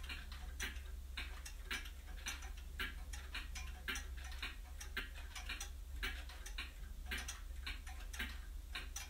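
Clock ticking steadily, about two sharp ticks a second.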